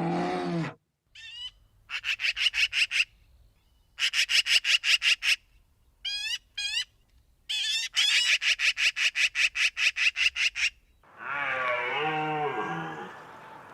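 A short tail of a large animal's roar, then a small animal's rapid pulsed trilling calls in several bursts of one to three seconds, with a few quick falling chirps between them. From about eleven seconds in, a cow moos.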